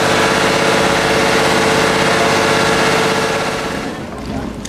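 A boat's engine running steadily and loudly at close range, then fading out about four seconds in.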